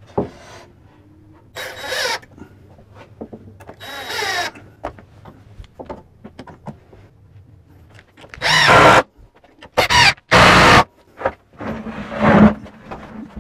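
Cordless drill-driver driving screws through a timber frame into a worktop, in several short runs of a second or less, the loudest three near the middle and the end.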